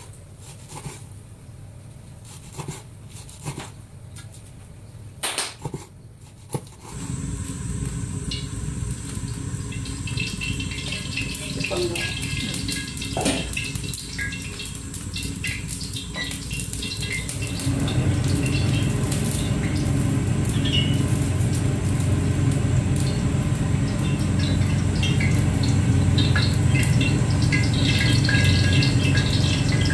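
A cleaver chopping meat on a wooden cutting board, a few sharp knocks. Then, about seven seconds in, a gas burner runs steadily under a wok with oil heating in it, with small crackles and pops; the burner noise gets louder about two-thirds of the way through.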